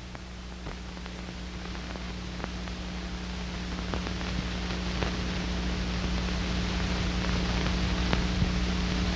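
Steady hiss and mains-type hum from an old film soundtrack with a few faint crackles, slowly rising in level. No work sound stands out.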